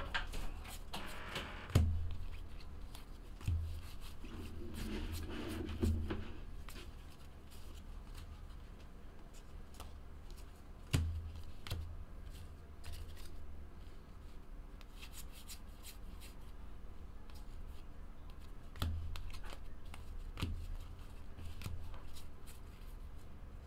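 Stack of football trading cards being flipped through by hand: card edges sliding and snapping past one another in many small clicks, with a few louder knocks.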